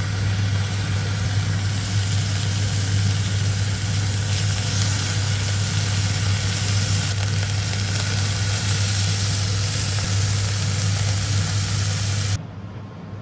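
Steady low hum with an even hiss over it, cutting off abruptly near the end.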